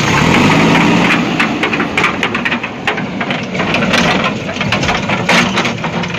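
Toy wheel loader's small electric motor and plastic gearbox whirring steadily as its bucket digs into soil, with many sharp clicks and scrapes from about a second in.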